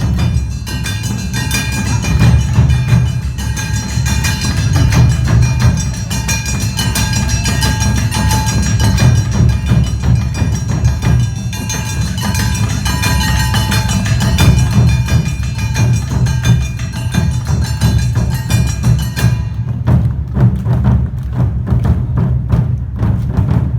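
Awa Odori hayashi music played live: taiko drums beating a steady rhythm with the metallic ringing of kane hand gongs and other high tones over it. About three-quarters of the way through, the high ringing drops out and the drums carry on.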